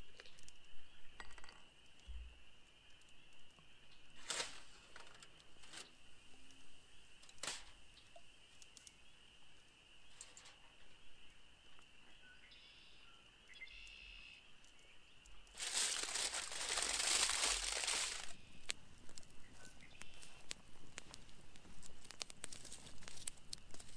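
Quiet outdoor ambience with a faint steady high-pitched drone, broken by a few sharp clicks. About sixteen seconds in comes a loud crinkling rustle lasting about two and a half seconds. Near the end a campfire crackles.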